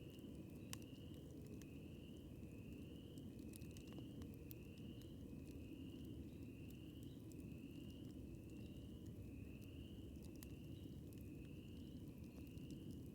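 Faint campfire ambience: a steady low rush with a few scattered sharp crackles. Over it, a small creature repeats short, slightly rising chirps about twice a second.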